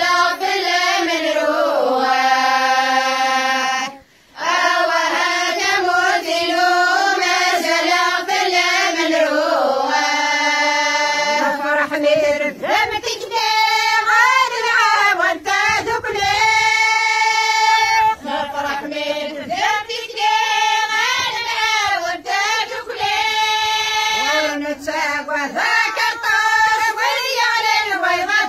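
Group of women and girls singing a Kabyle song together, with a brief break in the singing about four seconds in.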